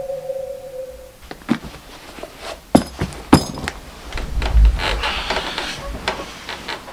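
A held musical tone fades out, then a few sharp clicks and knocks, followed by a soft thump and the rustle of bedding as someone lies down on a bed.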